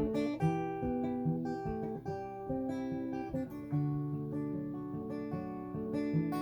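Acoustic guitar playing an instrumental passage, chords strummed and picked in a steady rhythm, with no singing.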